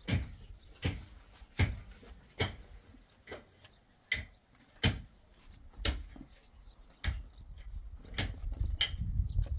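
Footsteps on a hard floor, one sharp step about every 0.8 seconds, with a low rumble of wind on the microphone building in the last couple of seconds.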